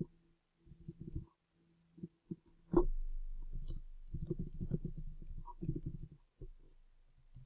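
Computer keyboard being typed on: an irregular run of key clicks, thickest in the second half, with one louder clack about three seconds in, over a faint steady low hum.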